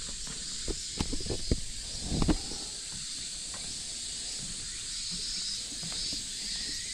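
Cicadas chirring in a steady high drone, with a run of footsteps in the first half, the loudest about two seconds in, and a few fainter steps later.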